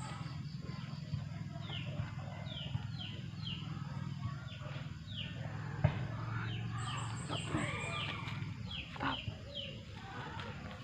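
Birds calling outdoors: many short chirps that each fall in pitch, repeated throughout, over a steady low hum, with a few sharp clicks.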